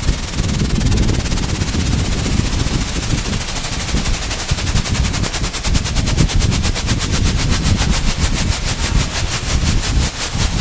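Downhill mountain bike running fast down a rough dirt trail, heard from a camera on the bike or rider: a rapid, even rattle of clicks over heavy wind and trail rumble on the microphone.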